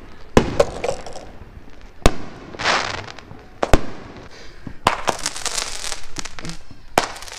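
Consumer fireworks going off close by: five or so sharp bangs a second or two apart, with hissing and crackling between them as shells burst and sparkle.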